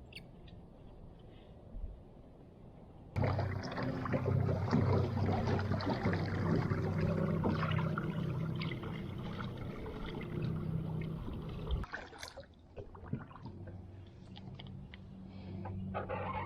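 Water splashing and sloshing around a kayak and a small jon boat moving across a lake, over a steady low hum from the jon boat's small electric trolling motor. The splashing turns suddenly louder about three seconds in and drops back about twelve seconds in.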